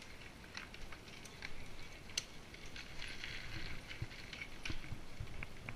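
Mountain bikes rolling over a dirt forest trail: faint tyre noise on soil and leaves with scattered clicks and rattles from the bikes over bumps, a little louder midway as a rider passes close by.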